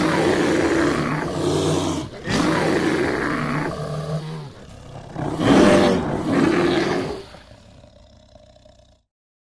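Bear roaring: three long, deep roars, the third the loudest, trailing off near the end.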